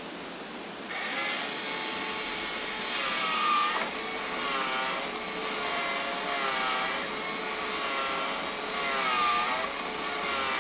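The small motor of a battery-operated moving coin bank whirring, its pitch wavering up and down over and over; it starts about a second in and stops near the end.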